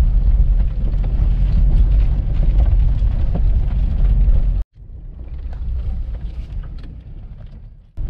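Car driving over a rough dirt track, heard from inside the cabin: a loud, steady low rumble of engine and tyres with faint scattered clicks. About halfway through it cuts off abruptly, and a quieter rumble follows and fades.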